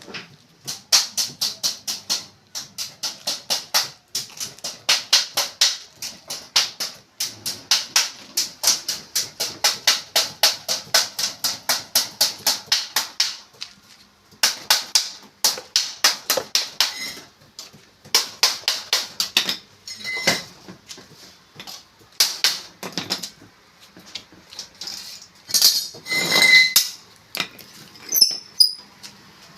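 A quick series of sharp taps or knocks, about two to three a second, in runs broken by short pauses and thinning out near the end.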